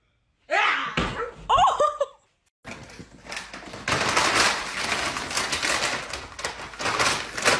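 Two short bursts of high, gliding dog whines, then a long stretch of clear plastic sheet crinkling and rustling as a puppy scrambles over it on a wooden floor.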